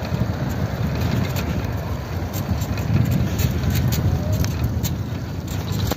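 Wind buffeting a phone microphone while riding a bicycle: a low, uneven rumble that swells about halfway through, with faint light ticks.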